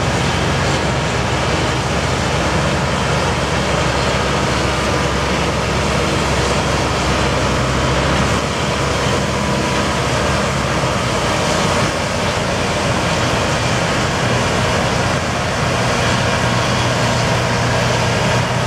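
Combine harvester running steadily in a soybean field: a constant engine drone under a broad rush of machinery noise, the low engine note shifting slightly about twelve seconds in.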